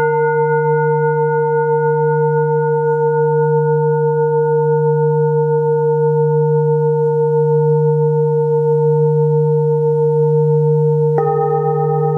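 Tibetan-style hammered metal singing bowls ringing: one is struck with a mallet at the start and rings on with bright overtones and a slow wavering, over the deep steady hum of a larger bowl. A second bowl is struck near the end, adding a new set of tones.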